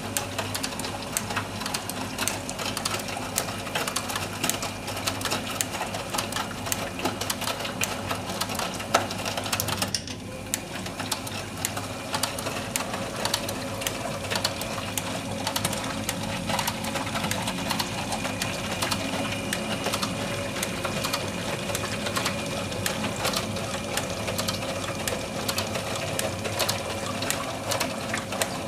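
Eudora Goldkind EU 340 small washing machine running its wash cycle: a steady motor hum with rapid clicking and rattling, briefly dropping away about ten seconds in before carrying on.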